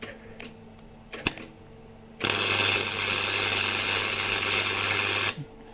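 Electric arc welder running a short tack weld on a small steel angle bracket: a loud, steady crackle for about three seconds that cuts off abruptly. A few light clicks and a sharp knock come before it.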